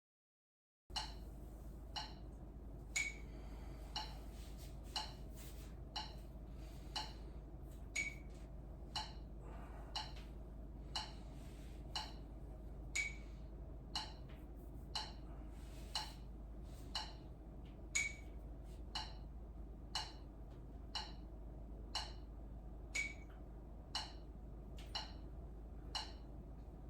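Metronome ticking at about one beat a second, with every fifth beat accented by a higher beep, over a low steady hum. It starts about a second in and counts off the seconds of a handstand hold.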